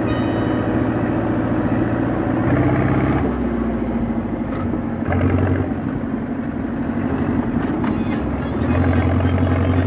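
Hürlimann tractor's diesel engine running as the tractor drives, the engine note changing about three seconds in and again near the end.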